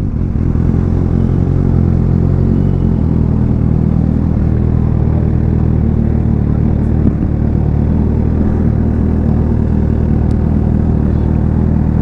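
Kawasaki ZX6R's inline-four engine running through an IXIL aftermarket exhaust at steady, low revs, its note holding even throughout.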